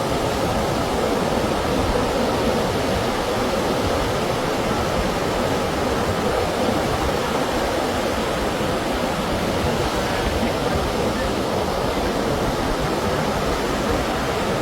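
Steady rush of sea surf breaking in the monsoon swell, an even roar of water with no breaks.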